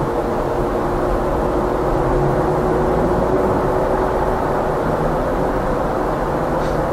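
Steady road and engine noise of a car being driven: an even low rumble with a faint steady hum.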